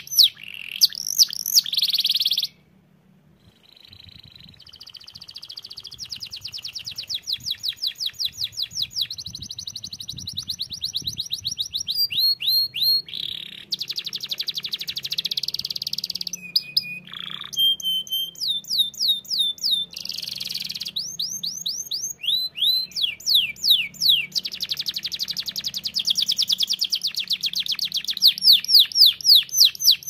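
Domestic canary singing a long, loud song of fast rolling trills, each phrase a rapid run of repeated high notes, switching from one trill to the next. There is one short pause about two seconds in before the song resumes.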